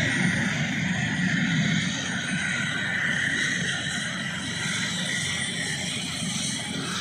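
Helicopter running: a steady engine and rotor noise with a faint high whine.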